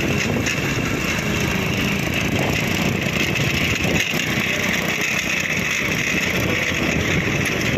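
Motorcycle running at riding speed, with wind rushing over the microphone; a steady, dense rumble.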